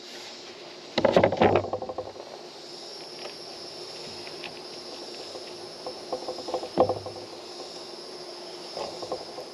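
A plywood board set down on a wooden table with a brief clatter about a second in. Around six to seven seconds in come a few light knocks and clicks as a spiked metal insert is fitted into a hole in the board. A steady high whine runs underneath.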